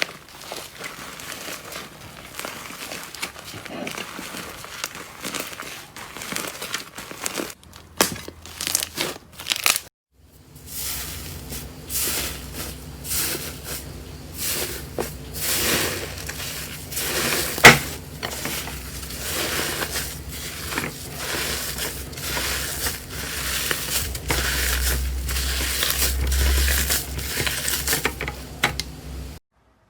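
Slime being pressed and stretched by hand, giving dense crackling and crinkling, with a break to a new clip about ten seconds in and one sharp pop in the later part.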